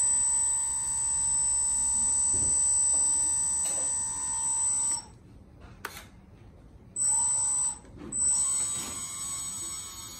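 Electric hydraulic pump of a Lesu 6x6 RC dump truck whining steadily as the tipper body is lowered, cutting out suddenly about halfway through. It runs again briefly near seven seconds, then restarts at a lower level shortly after.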